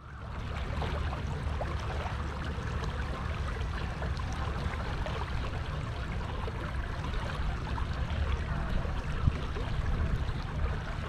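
Steady rush of water along the hull of a battery-powered fishing kayak under way, over a low rumble.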